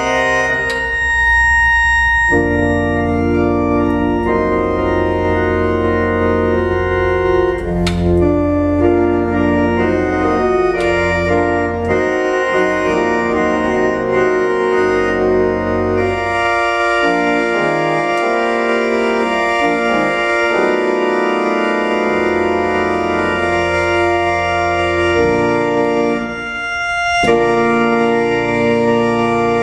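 Two-manual organ playing slow, sustained chords over a held bass line, the chords changing every second or two, with a brief lift between phrases a few seconds before the end.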